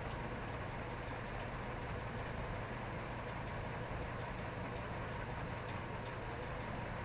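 Steady background hiss with a low hum underneath, unchanging and without any distinct event.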